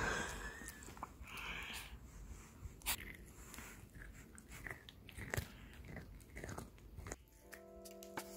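A Chihuahua biting and chewing a chunk of carrot: irregular crisp crunches and chews. Music comes in near the end.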